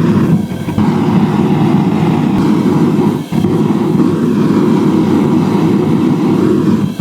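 Two home-made gas forge burners, fed through MIG torch tips, firing with a steady low rushing noise during a first test to see if they work. The sound drops out briefly about three seconds in.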